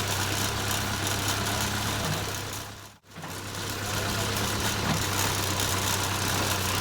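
Diesel engine of a JCB 3CX backhoe loader running steadily at a low, even speed. The sound fades out for an instant about three seconds in and comes straight back.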